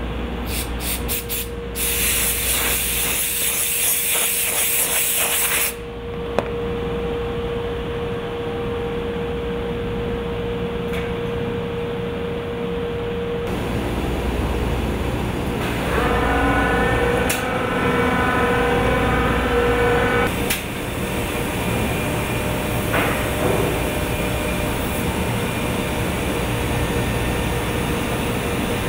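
Heian CNC woodworking router running while it machines V-grooves in MDF. A loud hiss for about four seconds near the start, with a steady hum under it, then a whine of several tones for about four seconds in the middle, then steady machine noise.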